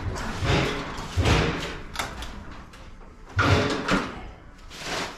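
Garage door and its hardware rattling and thudding in several short bursts, each with a heavy low thump, and a sharp metal click about two seconds in.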